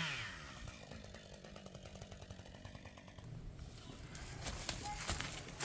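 A chainsaw engine winding down just after being shut off, its pitch falling away over about half a second. Faint background follows, with scattered clicks and knocks near the end.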